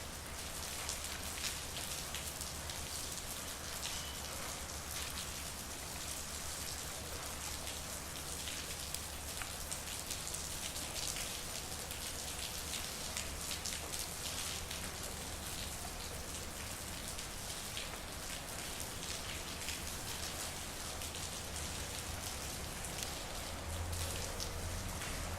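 Steady rain falling, many individual drops ticking on hard surfaces. A low hum grows louder near the end.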